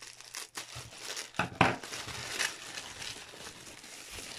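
Plastic bubble wrap crinkling and rustling as it is cut open with scissors and pulled off a resin doll, with a few sharp crackles, the loudest about a second and a half in.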